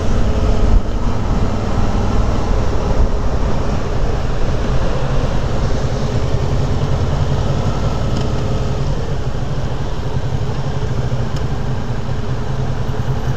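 Motorcycle engine running steadily at road speed, with a constant rush of wind and road noise on the bike-mounted microphone.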